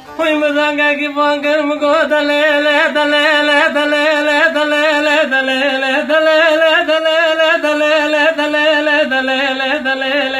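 A man singing a Kurdish lament (ağıt) in one long, unbroken phrase, his voice wavering in ornamented trills and stepping down in pitch in the middle and near the end, with a bağlama (long-necked saz) accompanying.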